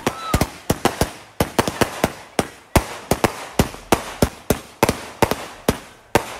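Consumer fireworks going off in a rapid, irregular string of sharp bangs, about four a second, with a louder bang near the end.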